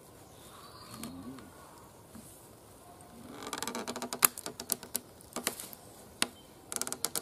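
Cord being drawn through and pulled tight around crossed wooden poles while jam knots are tied: a rapid run of rasping clicks about three seconds in, then scattered sharp ticks and a short burst of them near the end.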